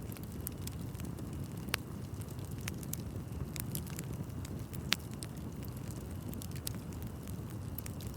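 Wood bonfire burning: a steady low rush of flames with scattered sharp crackles and pops from the burning wood. Two louder pops come about two seconds in and about five seconds in.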